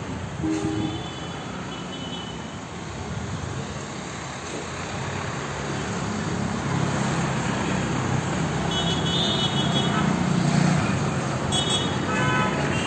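Street traffic noise: a steady wash of passing vehicles, with an engine growing louder from about halfway through and a few short high tones near the end.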